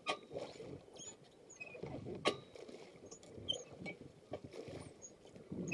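Paddles dipping and water dripping and lapping around an inflatable river raft, with small high drips and two sharp knocks, one at the start and one about two seconds in.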